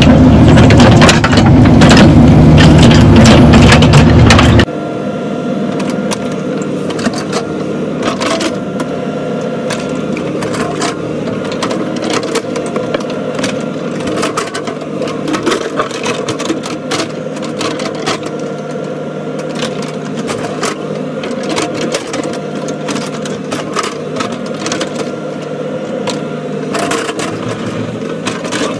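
Caterpillar mini excavator's diesel engine running as it digs a footer trench, with the bucket scraping and crunching through dirt and rock. Very loud for the first few seconds, then suddenly quieter about five seconds in: a steady engine hum with scattered clicks and knocks.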